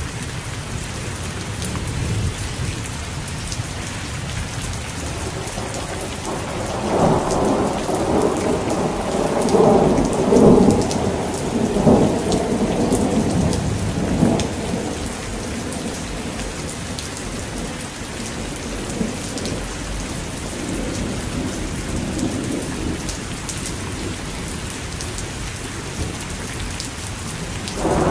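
Heavy rain falling steadily, with thunder: a long rumble swells about a quarter of the way in and fades by about the halfway mark, fainter rumbles follow later, and another peal begins at the very end.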